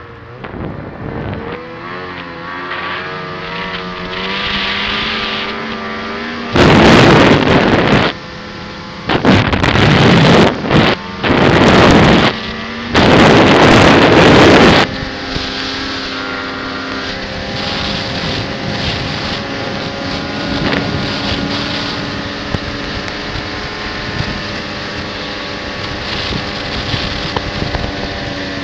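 Snowmobile engine running steadily under way, its pitch rising over the first few seconds and then holding. About six seconds in, four loud blasts of wind noise hit the microphone one after another and drown the engine for a second or two each.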